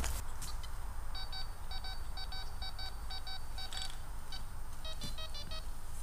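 Metal detector giving a target signal: a run of short, evenly pitched beeps from about a second in, then a quicker series in a different tone near the end. The beeps come from a metal find laid back into the ground to test how the detector identifies it.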